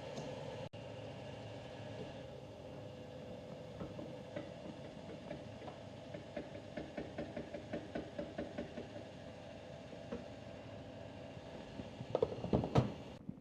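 2019 Yamaha MT125's single-cylinder engine breathing through a full Akrapovic exhaust: a steady engine note, then a run of short crackles from the exhaust, about three a second, and a quick cluster of loud pops and bangs near the end.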